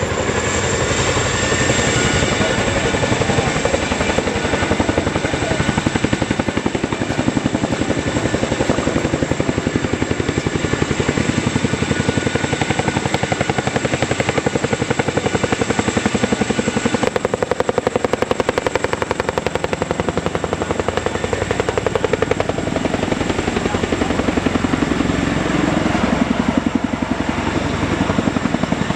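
Boeing CH-47 Chinook tandem-rotor helicopter flying low and close, its rotor blades beating in a rapid, steady chop with a constant high whine over it.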